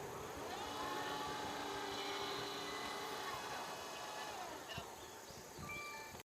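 Steady electric-motor whine at a railway level crossing, starting about half a second in, rising briefly, holding, then sinking away after about four seconds. A few short high tones follow near the end, and the sound cuts off abruptly.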